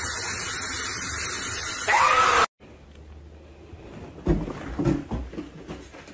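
Steady hiss of water spraying from a shower head for about two seconds, ending with a short rising-and-falling cry. After an abrupt cut, a much quieter room with a few soft thumps.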